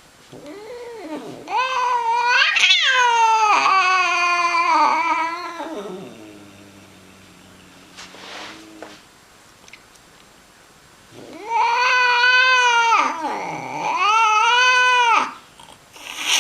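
Domestic cat yowling angrily: one long, wavering, drawn-out yowl that rises to a peak and then falls, a pause, then two more long yowls near the end.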